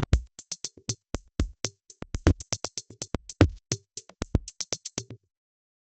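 An eight-beat drum pattern: evenly spaced hi-hat-like hits about six a second over heavier low kick-drum thumps, stopping abruptly about five seconds in.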